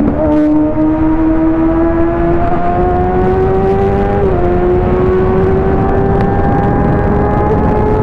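Inline-four sport bike engine under steady acceleration, its note rising slowly, with a brief dip a little past the middle before it climbs again. A rushing noise of wind and road runs underneath.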